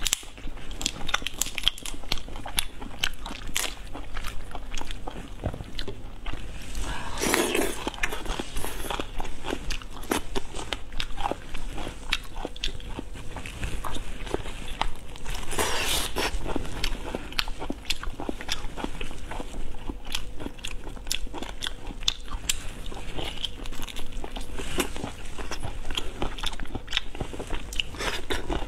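Close-miked mukbang eating: biting, chewing and sucking on pieces of food taken by hand from a bowl of broth, a steady run of small wet clicks, smacks and crunches. Two longer, louder stretches stand out, about seven and sixteen seconds in.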